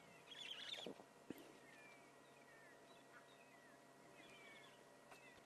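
Faint, distant monkey alarm calls in near silence: short high chirps, a small cluster about half a second in and scattered falling notes after. A soft knock a little over a second in.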